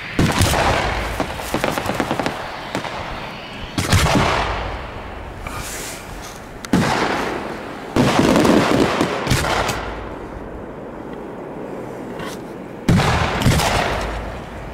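Aerial fireworks shells bursting overhead: five sharp booms a few seconds apart, each followed by a crackling tail that fades over several seconds.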